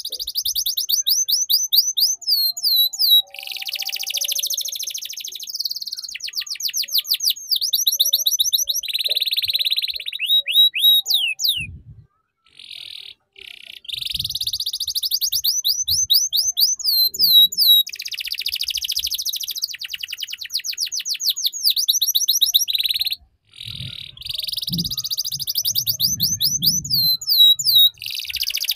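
Domestic canary singing a long song in the ngeriwik style, used as tutor song for young canaries. It runs through rapid high trills and runs of quick down-sweeping notes, phrase after phrase, with two brief pauses, one about halfway through and one a little past two-thirds.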